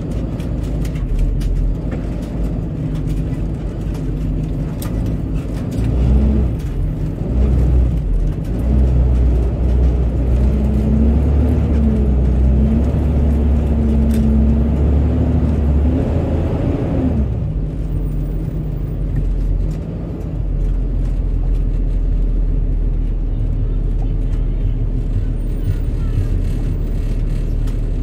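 Low, continuous rumble of slow city traffic and vehicle engines. It grows heavier from about six seconds in, with a steady engine hum, then eases back a little past the middle.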